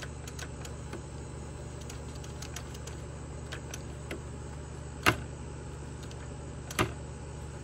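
A few sharp clicks and taps from handling a Homelite chainsaw by its top handle, the loudest about five and about seven seconds in, over a steady low hum.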